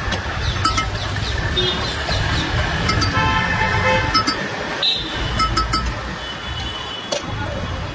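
Roadside street-stall ambience: a steady low traffic rumble with sharp clinks of a steel spoon against steel bowls and short tonal sounds scattered through.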